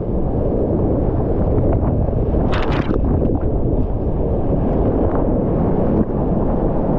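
Loud, steady rush of whitewater rapids right around a kayak, buffeting the camera's microphone, with water splashing over the boat and a brief sharp splash about two and a half seconds in.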